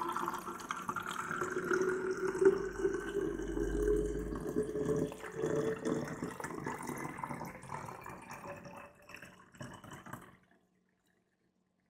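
Tap water being poured from a stainless steel jug into a volcano lamp's water tank: a steady pour that fills the tank almost to the top, then cuts off suddenly about ten seconds in.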